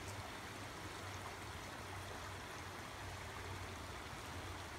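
Shallow stream running over rocks: a steady rush of water.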